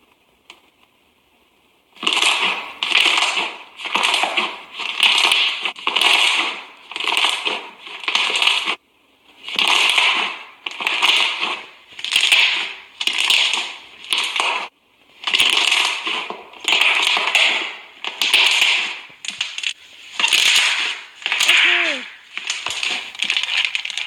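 Slime being poked and squeezed: a steady run of loud squishing bursts, about one a second, starting about two seconds in.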